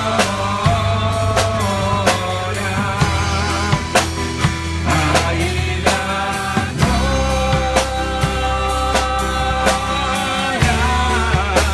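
Christian worship song playing loudly, with drums keeping a steady beat, a bass that moves to a new held note every few seconds, and long held melody notes above.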